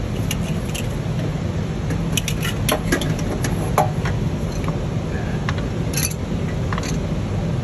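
Scattered light metallic clicks and clinks from an EGR valve actuator and its fittings being handled and worked into place by hand, over a steady low background hum.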